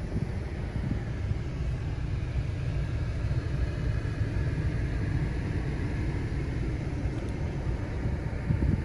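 Steady low rumble of wind buffeting the microphone, fluttering unevenly without any pitched tone.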